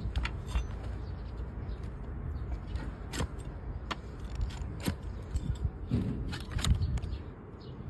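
Hoof trimming on a donkey: scattered sharp scrapes and clicks as a blade cuts into overgrown hoof horn, over a low rumble.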